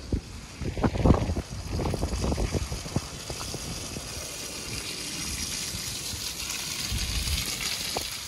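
Wind gusts buffeting the microphone in the first few seconds. Then a Toyota RAV4 hybrid approaches slowly on a wet, muddy dirt track, its running and tyre noise a steady hiss that grows louder as it draws near.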